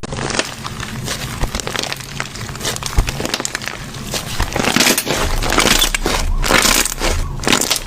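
Slime being squeezed and pressed by hand, giving a dense, irregular crackling and crunching that gets busier about five seconds in.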